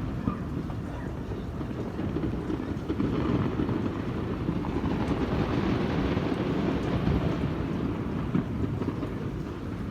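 Wind rumbling on the microphone over a steady outdoor din, with two faint pops of distant firecrackers, one just after the start and one near the end.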